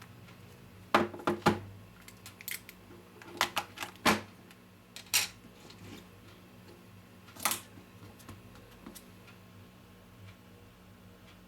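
Irregular clicks and taps of a phone and its packaging being handled, eight or so in the first eight seconds, then stillness. A low steady hum runs underneath.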